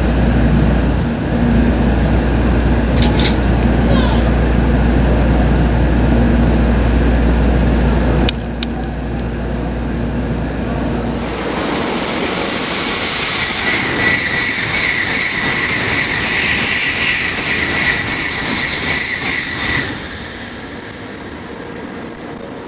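A steady low rumble inside a Shinkansen car running at speed. About eight seconds in the sound cuts, and from about thirteen seconds a Shinkansen passes through a station at speed for about seven seconds with a loud rushing hiss and a steady high whine.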